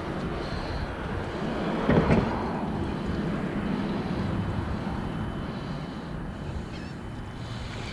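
A hooked carp thrashing and splashing at the water's surface, loudest about two seconds in, over a steady rushing background. Faint honking calls near the end.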